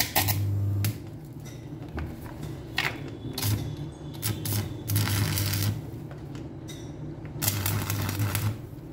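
Stick (arc) welder striking and running its arc in several short bursts, the longest near the end: the arc crackles, with the welder's hum under each burst. Weld is being laid onto a broken bolt.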